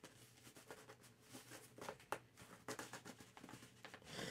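Faint scattered clicks and light rustles of a cardboard Funko Pop box being handled and opened.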